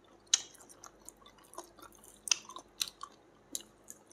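A person chewing steamed chicken with the mouth closed, with scattered sharp wet smacks, the loudest about a third of a second in and twice more a little past the two-second mark.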